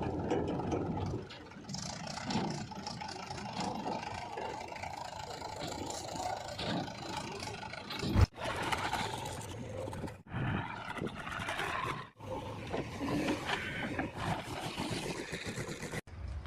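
A JCB 3DX backhoe loader's diesel engine running under load as it digs and loads mud, with scraping. The sound breaks off abruptly several times between segments.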